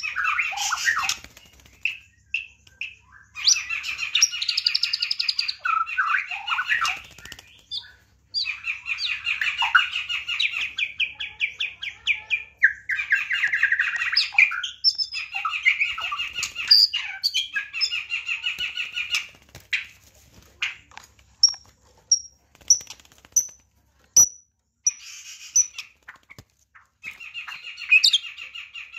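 White-rumped shama (murai batu) singing in its cage: long, rapid phrases of varied whistles and rattling trills, broken by short pauses. About two-thirds of the way in there is a run of single high upward chirps spaced well apart.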